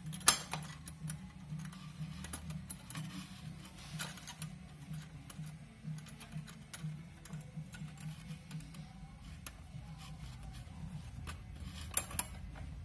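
Small metallic clicks and rattles as a Lambretta's primary chain and clutch parts are handled and fitted by hand, with a sharper clack just after the start and another near the end.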